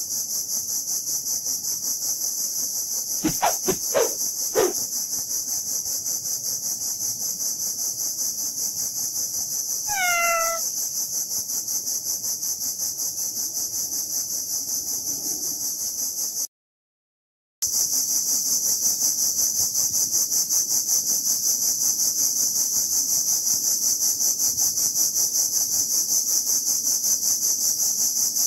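Cicadas droning loud and high-pitched with a fast, even pulse throughout, dropping out for about a second past the middle. Three or four sharp clicks come about three to four seconds in, and a single short animal call falling in pitch comes about ten seconds in.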